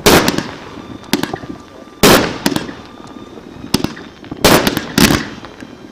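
New Year's Eve fireworks going off: about seven sharp bangs at irregular intervals, each with a tail that fades away over a fraction of a second.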